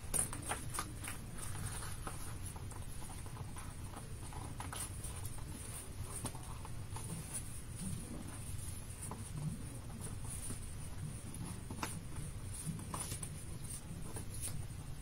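Cardstock being handled and folded by hand on a craft mat: scattered faint rustles, taps and scrapes of paper under fingers, over a low steady background hum.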